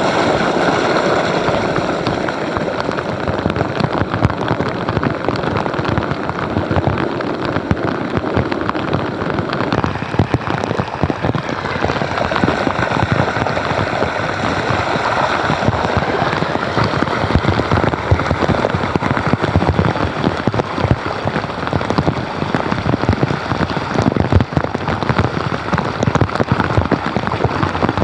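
Cloudburst rain pelting standing floodwater on a street: a dense, loud patter of drops, with water running down into a street drain.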